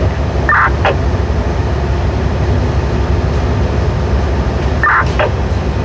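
Diesel engine of a mining haul truck running with a steady low drone, heard inside the cab. Two brief higher-pitched sounds cut in, about half a second in and again near the end.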